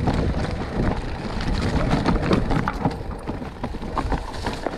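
Mountain bike tyres rolling and clattering over loose stones and rock, many small knocks and crunches over a low rumble of wind on the microphone.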